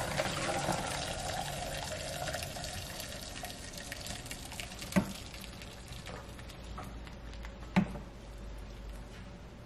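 Cooked elderberry liquid poured from a stainless steel pot through a fine mesh strainer into a plastic bowl: a splashing pour, loudest at first and thinning to a trickle. Two sharp clinks, one about five seconds in and one near eight seconds.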